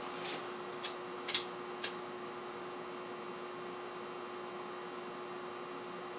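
Faint steady hum, with four light clicks in the first two seconds.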